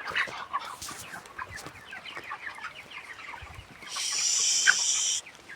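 A flock of four-week-old chickens cheeping and clucking continuously, many short high calls overlapping. About four seconds in, a loud, high-pitched buzzing hiss lasts a little over a second and then stops suddenly.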